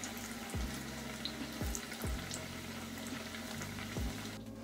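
Donuts deep-frying in a saucepan of hot oil: a steady sizzle with small crackling pops, and a few low thumps as they are turned with tongs.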